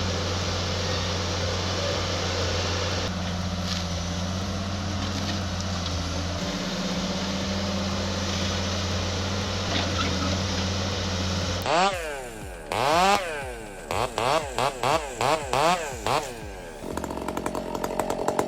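A steady low engine drone. About two-thirds of the way through, a chainsaw is revved up and down in quick blips, then held at high revs near the end.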